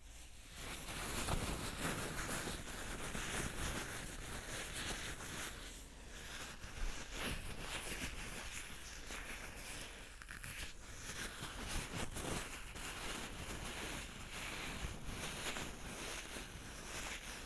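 Close-miked ASMR scratching and rustling on the microphone, dense and crackly with a few sharper clicks, starting about half a second in.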